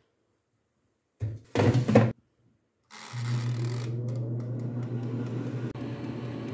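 Air fryer basket knocking as it is pushed shut, then about three seconds in the air fryer switches on and its fan motor spins up into a steady hum, with light clicks as the timer dial is turned.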